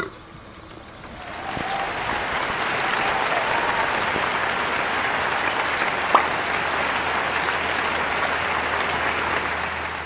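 Crowd applauding, swelling in about a second in and holding steady before fading near the end, with one sharp click about six seconds in.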